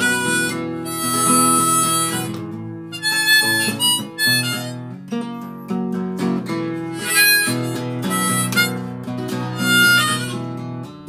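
Harmonica played in a neck rack: a solo of held and short notes in phrases over strummed acoustic guitar chords.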